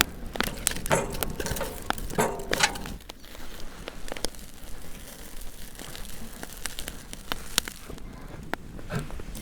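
Campfire crackling, with irregular sharp pops and cracks, and denser crunching in the first three seconds.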